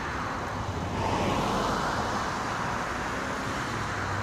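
Outdoor road traffic noise: a vehicle passes about a second in, its sound swelling and fading, over a low steady engine hum that sets in during the second half.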